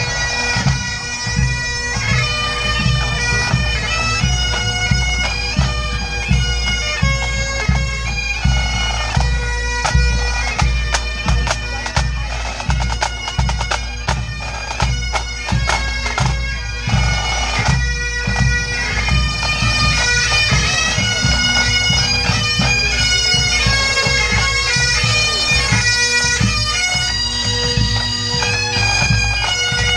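Scottish pipe band playing: Highland bagpipes with a steady drone under the chanter melody, and snare and bass drums beating a regular marching time.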